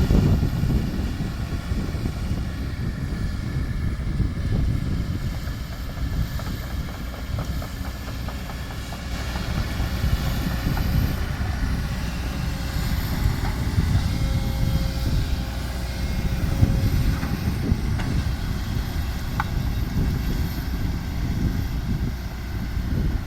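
Heavy diesel dump truck engine running, a steady low rumble.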